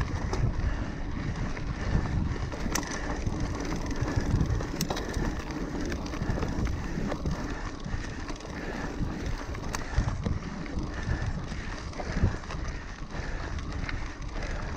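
Mountain bike rolling along a dirt singletrack: steady tyre noise and rumble of the bike over rough ground, with a few sharp clicks and rattles from the bike.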